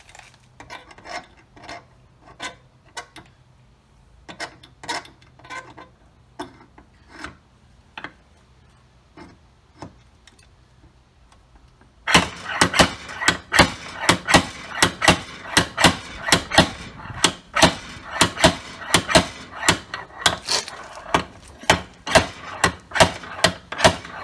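Scattered metal clinks and knocks from the stud welder's dent-pulling tools. About halfway through, a fast, even run of metallic strikes and scraping starts, about two or three a second.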